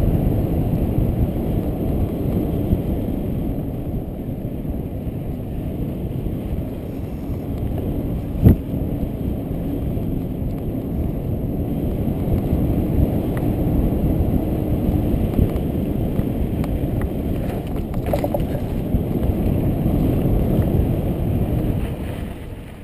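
Wind rushing over the camera microphone and tyres rumbling on a dirt trail as a mountain bike descends at speed, with one sharp knock about eight seconds in. The rush fades near the end.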